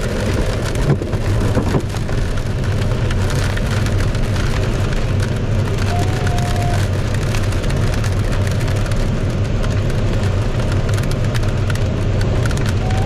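Rain drumming on a glider's canopy in flight, over the steady rush of air past the cockpit. A short electronic beep sounds about six seconds in.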